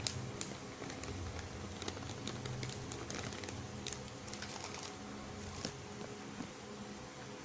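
Scattered light clicks and taps of kitchen items being handled while the chicken marinade is prepared, over a low steady background hum.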